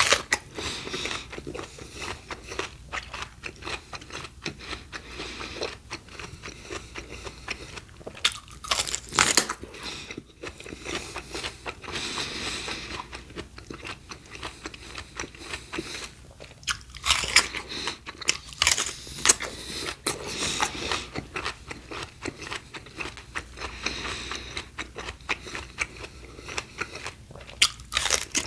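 Close-miked crunchy biting and chewing of raw fruit and vegetables: a dense run of crisp crunches, with several louder bites along the way.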